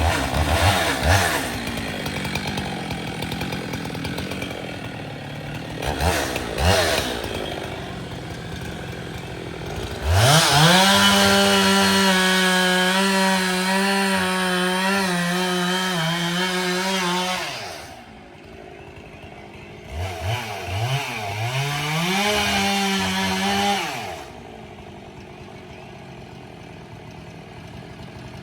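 Chainsaw running and cutting wood. It is revved up to full throttle about a third of the way in and held there for about seven seconds, revved again briefly a little later, and drops back to idle near the end.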